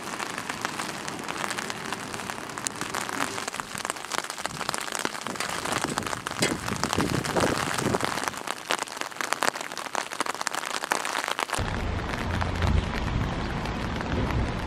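Rain falling on an umbrella overhead: a dense, steady patter of drop hits. About twelve seconds in it changes abruptly to a duller rain falling on canal water, with a low rumble underneath.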